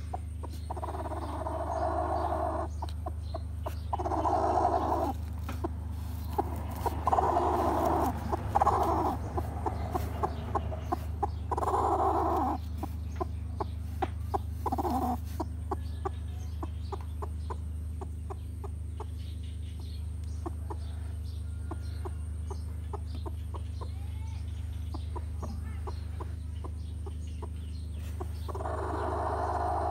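Broody hen clucking in short spells of a second or two, several times, over a steady low hum with small clicks throughout.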